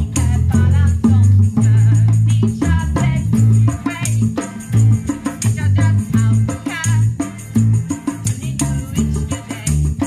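A live band playing: electric bass guitar notes, strummed acoustic guitar, bongos and a hand shaker rattling, with a woman singing.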